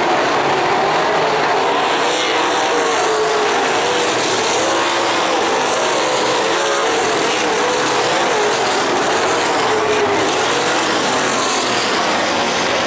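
Several winged sprint cars' V8 engines running at race speed around a dirt oval, loud and steady, their pitch swelling and falling as the cars circle and pass.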